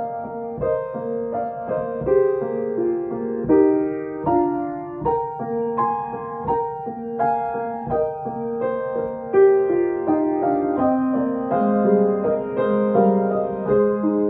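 Kawai grand piano played solo from sheet music: a melody over chords, with new notes struck about every half second.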